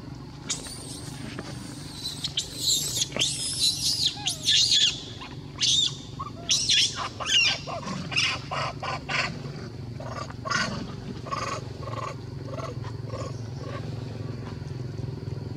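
Macaques calling: a string of shrill, high squeals and shrieks through the first ten seconds or so, then a run of shorter, lower calls about two a second, over a steady low hum.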